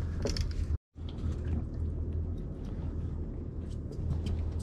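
Steady low hum of an idling boat engine, with faint scattered clicks; the sound drops out completely for a moment about a second in.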